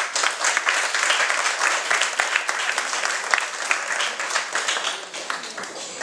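A room full of people applauding: dense, irregular hand clapping that thins out and dies down near the end.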